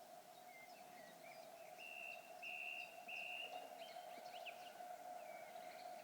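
Birds singing: a string of short chirps and a few longer held whistled notes, faint, over a steady low hum.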